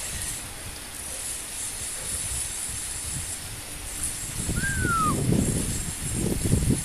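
Heavy rain falling as a steady hiss. A low rumble swells up twice, near the middle and near the end, and a single short falling whistle sounds about five seconds in.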